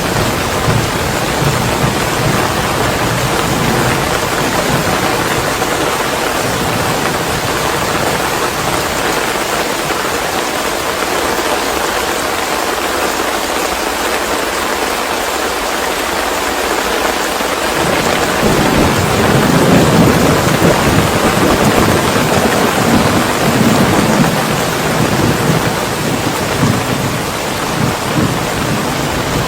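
Steady heavy rain with thunder rumbling low. The rumble fades for several seconds in the middle, then swells again a little past halfway.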